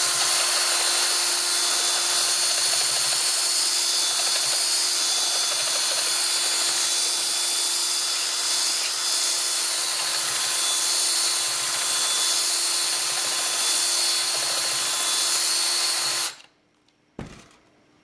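Cordless drill running steadily as it drills out the hole of a metal washer clamped in a vise, enlarging it so a hose connector will sit flush. It cuts off suddenly about sixteen seconds in, and a single short click follows.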